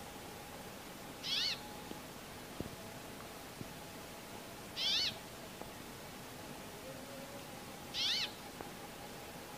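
Brambling calling: three short calls about three seconds apart.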